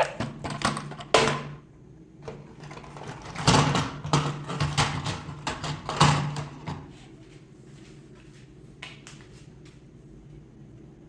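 Irregular clicks and knocks, like small hard objects being handled, over a faint low hum; they die down after about seven seconds.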